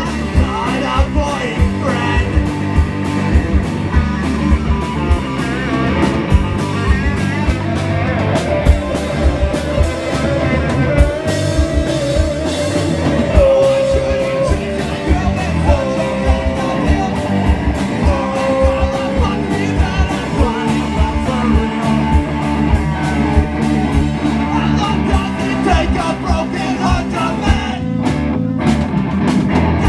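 Live rock band playing loud: a drum kit pounding steadily under electric guitar, with a singer holding long notes through the middle. The band briefly drops out for a moment just before the end, then comes back in.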